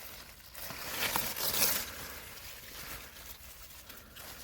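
Rustling and scraping of beet leaves and soil as a beet is pulled out of a planting tub by hand, loudest for about a second near the middle.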